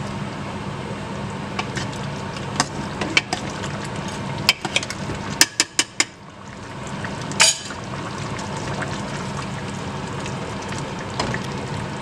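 A pot of chicken curry with thin coconut milk being stirred as it cooks: a steady liquid bubbling and sloshing with scattered clinks of a utensil against the pot, a quick run of clinks a little after five seconds in, and one louder knock about seven and a half seconds in.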